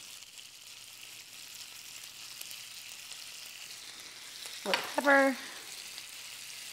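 Asparagus and garlic sizzling steadily in hot olive oil in a skillet on an induction stove. About five seconds in comes a brief loud pitched sound: a quick falling squeak, then a short held tone.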